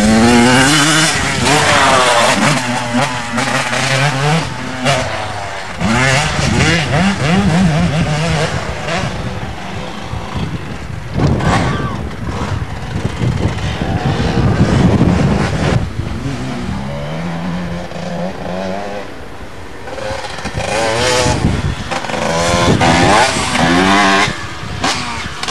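Motocross bike engines revving up and down, the pitch climbing and dropping again and again as the bikes ride through the gears; the sound is loudest near the start and again around the middle.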